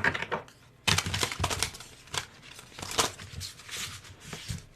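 A tarot deck being shuffled by hand: runs of quick papery riffles and clicks in a few bursts.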